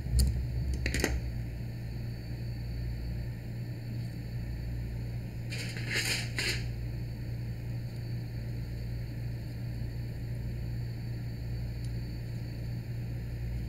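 Small handling noises from a camera lens being taken apart: a couple of light clicks near the start and a brief scrape in two or three strokes about six seconds in, over a steady low hum.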